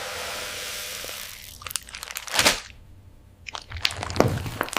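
Slime loaded with plastic beads being handled, giving crunchy crackles and pops. A steady hiss fills the first second and a half, then scattered sharp crackles follow, thickening into dense crunching near the end.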